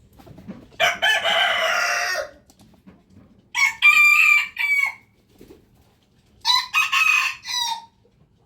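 Roosters crowing, three crows a couple of seconds apart. The first is lower and rougher; the second and third are higher-pitched and broken into several syllables, cock-a-doodle-doo style.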